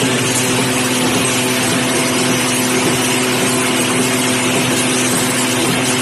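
CNC wire straightening and cutting machine running, a steady loud mechanical hum with a constant whirring noise over it.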